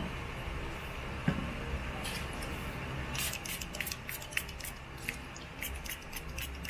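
Fingers and small tools working on the opened drone's corroded circuit board: a light knock, then quick irregular little clicks, several a second, from about three seconds in, over a steady low hum.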